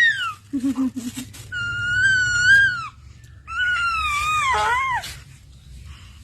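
A baby squealing: three long, high-pitched squeals, the last one falling in pitch at its end, with a short low vocal sound between the first two.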